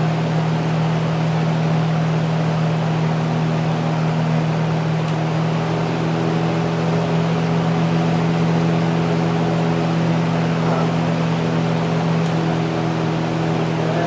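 Transistorized variable-speed Rotobroil box fan running steadily: an even rush of air over a constant low motor hum, with a fainter, higher hum joining about six seconds in.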